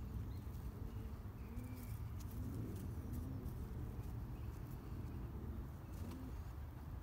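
A dove cooing in the background, several short low calls that rise and fall, over a steady low rumble. There are a few faint soft ticks from soil being pressed by hand.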